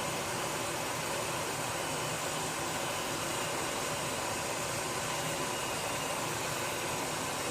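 Steady hiss of gas being released in a kitchen, even and unbroken.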